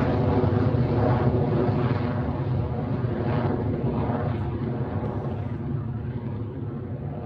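Electron rocket's nine Rutherford engines thundering in ascent shortly after liftoff, a dense low rumble that gradually grows fainter as the rocket climbs away.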